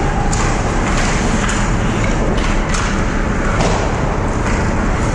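Hockey sticks, puck and skates clacking and knocking in a scramble at the net, about one sharp knock a second over a steady rush of rink noise.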